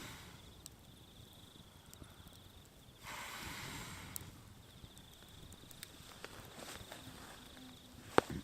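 Campfire crackling with scattered sharp pops, one loud crack near the end, and two brief rushes of hiss, over a steady high pulsing trill of insects.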